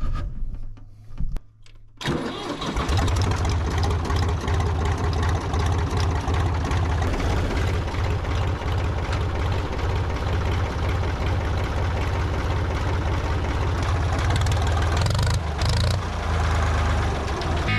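Diesel tractor engine starting about two seconds in, then running steadily.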